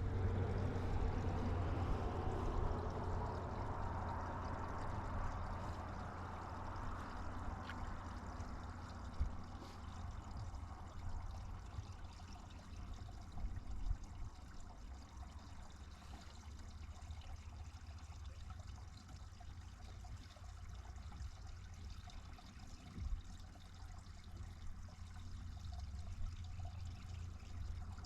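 Water pouring and trickling, loudest at first and fading over the first several seconds, over a steady low hum, with a few light knocks.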